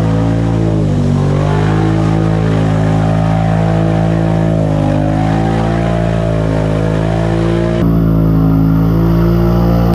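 ATV engine running under load while the quad ploughs through a muddy water trench, its pitch dipping briefly about a second in and again about halfway through. The sound changes abruptly near the end.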